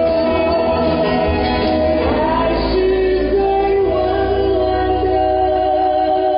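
Live Mandarin pop ballad with band accompaniment: a woman sings a long held line, then a man takes up the next line partway through.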